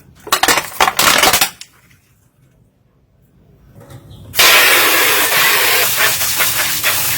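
Water spraying out under high pressure: a short spluttering, clicking burst, then after a pause a loud steady rushing hiss of spray starting about four and a half seconds in.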